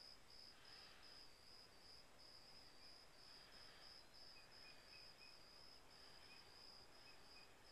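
Near silence outdoors, with a faint steady high-pitched insect trill running throughout.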